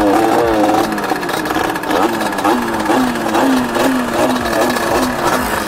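A motorcycle engine revved in quick repeated throttle blips, its pitch rising and dropping back about two to three times a second.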